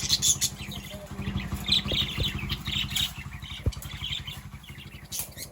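Lovebirds chirping in short, rapid high notes over a steady low rumble.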